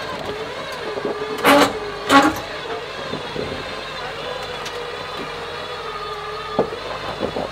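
Jeep Wrangler JK engine running steadily at crawling speed as the rig climbs over rocks, with a steady whine throughout. Two short, loud noises come about a second and a half and two seconds in, and a sharp click comes near the end.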